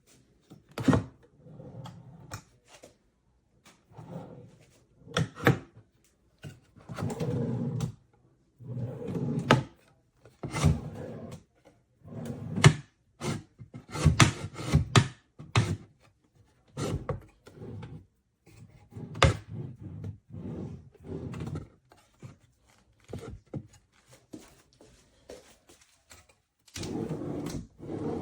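Drawers of a makeup vanity made of cheap composite wood being slid open and pushed shut again and again: sliding rubs broken by sharp knocks and clicks.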